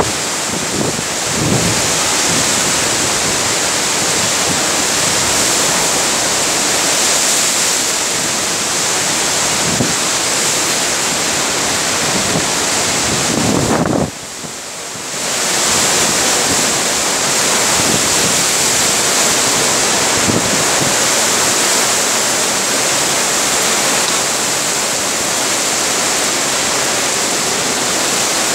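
Cyclone-force wind blowing hard through trees as a steady, loud rushing roar, buffeting the microphone. The roar drops away for a moment about halfway through, then comes back.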